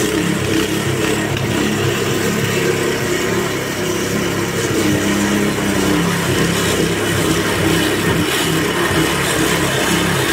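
Weibang petrol lawn scarifier running steadily as it is pushed across the lawn. Its single-cylinder engine hums evenly under load while the blades slice and rake out the thatch.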